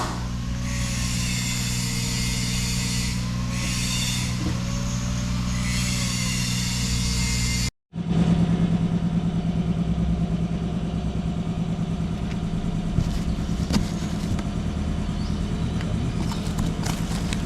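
Mini excavator's diesel engine running at a steady speed. It cuts out abruptly about eight seconds in, then comes back louder.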